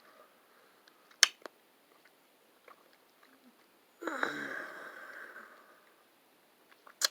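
Chewing a sugar-coated elderberry gummy, with small wet mouth clicks and one sharp click about a second in. About four seconds in, a breathy murmur falling in pitch for about two seconds.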